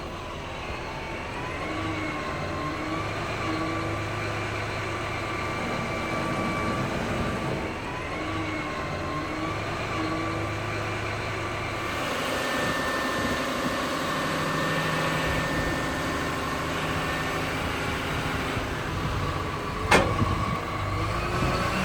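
Cat 150 motor grader's diesel engine running steadily, with a whine that steps up and down in pitch. The sound changes character about halfway through, and a single sharp knock comes near the end.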